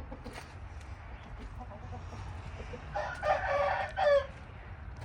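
A rooster crowing once, a call of a little over a second that starts about three seconds in.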